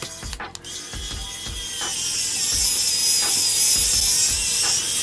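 Small electric screwdriver driving a screw into a laptop's metal hinge bracket: a high motor whine that starts within the first second, grows louder and cuts off abruptly at the end.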